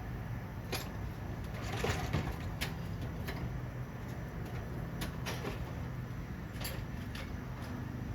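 Scattered light clicks and knocks, about eight of them at uneven intervals, from tools and small parts being handled while taking apart a Stihl 020T chainsaw, over a steady low hum.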